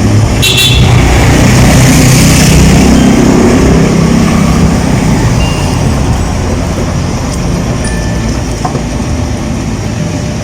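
A heavy vehicle, truck-like, passing close by: a loud engine and road rumble that swells over the first couple of seconds and then slowly fades away.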